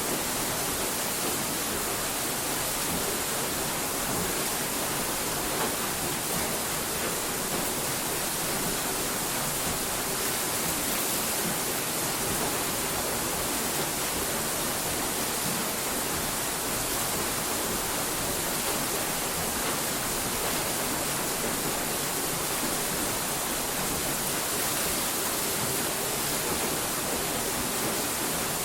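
A steady, even hiss of noise like static or rushing water, with no change in level or pitch.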